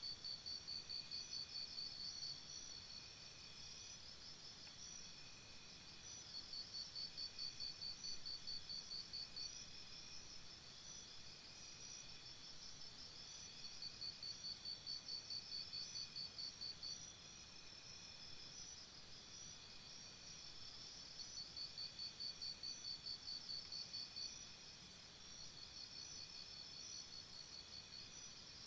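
Faint insect chirping, cricket-like: rapid high-pitched pulsed trills that come in repeated bouts of two to three seconds with short pauses between, over a steady high hum.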